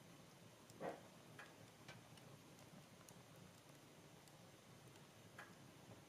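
Real-wood fire in a fireplace crackling faintly, with scattered small pops and snaps, the loudest about a second in.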